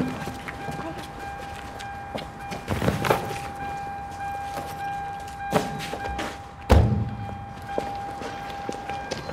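A held, steady high tone from the film's score, with a few dull thuds over it, the loudest about two-thirds of the way in.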